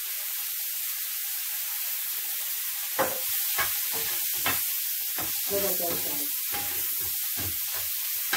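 King prawns sizzling in butter, garlic and chili in a frying pan, a steady hiss. From about three seconds in, a wooden spatula knocks and scrapes against the pan as the prawns are stirred.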